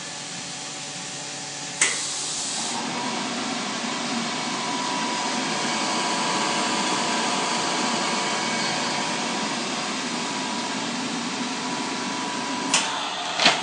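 Small semi-automatic plastic thermoforming machine at work. About two seconds in, a sharp burst of air hiss sets off a steady, even machine drone with a faint whine. More short bursts of air hiss come near the end.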